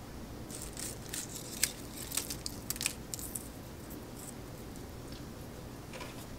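Thin, crisp baked sourdough crackers snapping and crackling as pieces are broken off a silicone-lined baking sheet by hand, a run of small sharp cracks in the first three seconds or so and fewer after. The easy breaking is the sign that the crackers are done.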